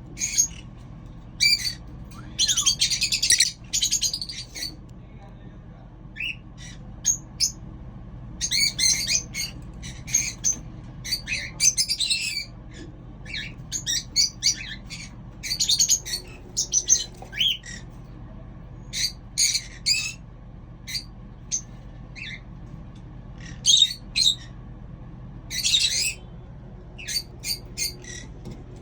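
Small pet parrots calling: a long string of short, sharp chirps and squawks, broken by a few longer chattering bursts, over a steady low hum.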